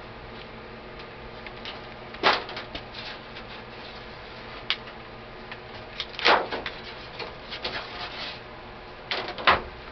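Metal clicks and clacks of AK-47 parts being handled and slid apart during field stripping: a few sharp knocks about two, six and nine seconds in, the loudest near the end.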